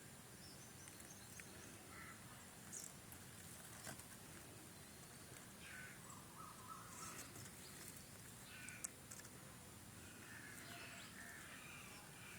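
Faint outdoor ambience: a steady low hiss with scattered, distant bird calls coming and going.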